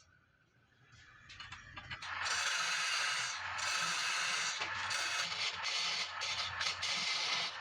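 Turning tool scraping into palm wood spinning on a wood lathe: a steady, hissy cutting noise that starts about two seconds in.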